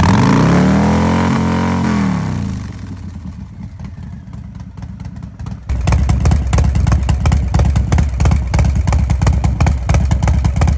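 Harley-Davidson 117 V-twin with S&S 475 cams revved once, rising and falling back within about two seconds, then running softer. About halfway through, a loud pulsing idle comes in suddenly.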